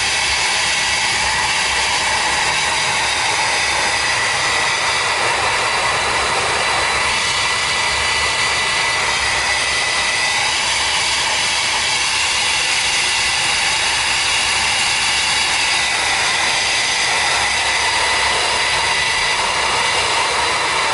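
Handheld hair dryer running steadily, blowing hot air on a tablet's glass to soften the screen adhesive before it is pried open. Its rush of air carries a steady high-pitched motor whine.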